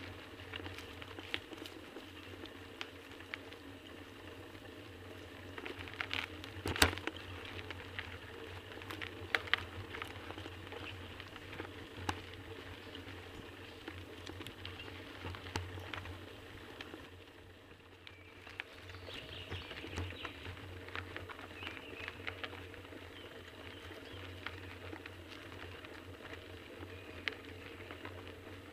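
Bicycle riding over a dirt forest track, heard from a camera on the bike: a steady low hum and rustle of tyres on dirt and dry leaves, with many small clicks and knocks from bumps. The loudest knock comes about seven seconds in.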